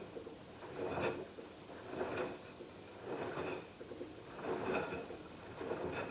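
LG F10B8QD1 direct-drive front-loading washing machine in the wash phase, its drum turning the wet laundry so that it swishes and tumbles in repeated surges, about one every second.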